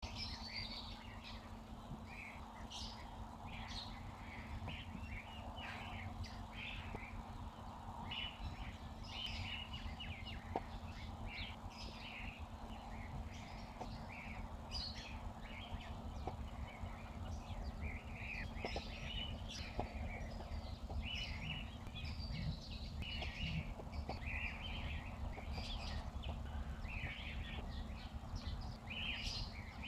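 Many small birds chirping in quick, scattered bursts over a steady low rumble, with a few faint knocks.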